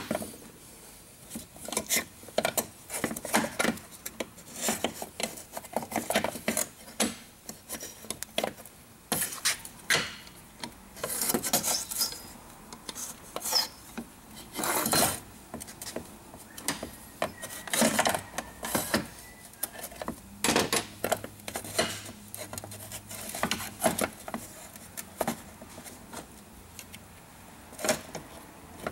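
Irregular metallic clicks, knocks and scraping from a short-throw shifter assembly being worked by hand: the shift lever, its spring and the rubber bushing are pushed, rocked and pried to get the spring seated below the bushing.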